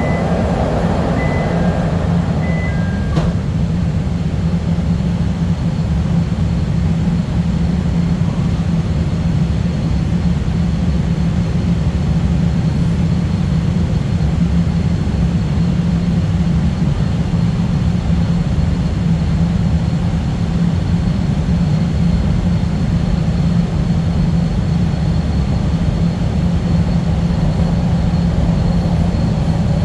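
CTA Blue Line subway train running steadily through the tunnel between stations, a loud even rumble heard from inside the car, with a faint steady high whine above it.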